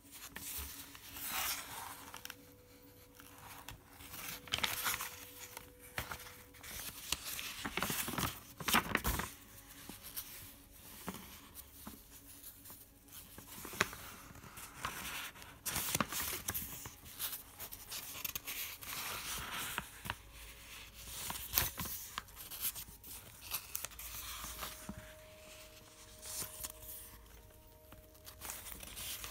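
Paper notebook pages being handled and turned by hand: irregular crisp rustles and page flips, several of them louder.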